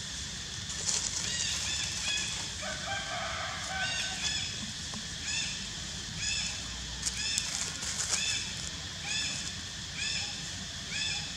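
A series of short, high, arching animal calls, repeated evenly about every 0.7 seconds from about four seconds in, with a lower drawn-out call just before, over a steady low rumble.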